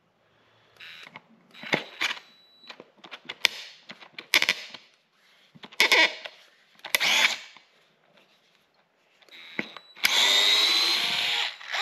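Cordless DeWalt 8-volt gyroscopic screwdriver whirring in several short bursts, then running for about a second and a half near the end, driving a 1 5/8-inch drywall screw into a softwood block.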